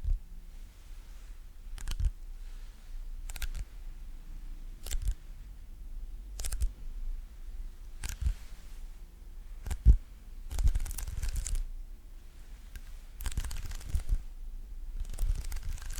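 ASMR sticky sounds: short sticky taps or peels at an even pace, about one every one and a half seconds, then a few longer crackling peels that break the pattern near the end.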